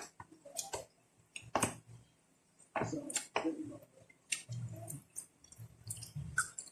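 Close-miked eating sounds: irregular wet clicks and smacks of chewing and lips, with a couple of short low hums in the second half.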